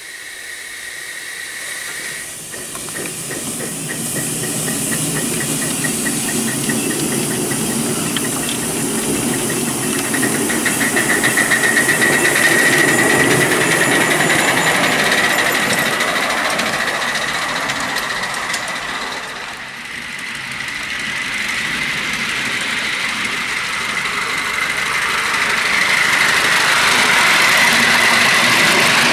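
A 5-inch gauge coal-fired GWR 61XX live steam tank locomotive running under steam, its rapid exhaust beats and hissing steam growing louder over the first few seconds as it pulls away. The sound dips briefly about two-thirds through, then rises again.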